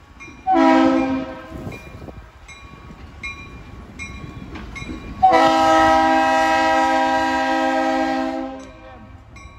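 Diesel locomotive's air horn sounding a chord for a road grade crossing: one short blast, then a single long blast of about three and a half seconds.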